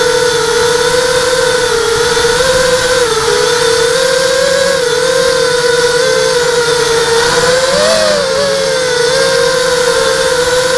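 ZMR hexacopter's six brushless motors and propellers whining steadily in flight, heard from a camera on board; the pitch wavers slightly with the throttle and rises briefly about eight seconds in.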